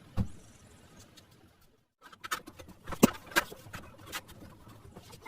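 A series of sharp clicks and knocks at irregular intervals: one knock at the start, then after a brief silence a quick run of them, the loudest about a second before the end.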